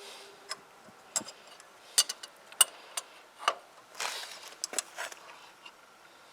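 Sharp metal clicks and clinks of an adjustable wrench on a motorcycle's fork clamp bolt as it is worked loose, coming irregularly about every half second, with a short scrape about four seconds in.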